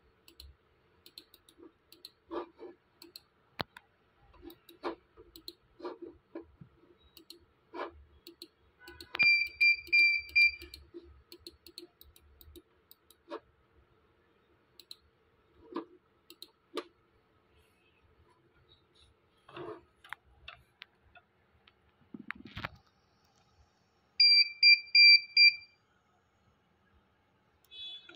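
Computer mouse clicking now and then while a security recorder's on-screen menu is worked. Twice, about nine seconds in and again near the end, comes a quick run of loud, evenly spaced electronic beeps, each run lasting about a second and a half.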